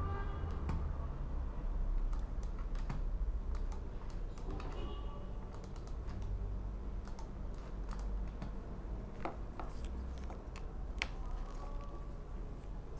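Scattered clicks of a computer keyboard being typed on, over a low steady hum.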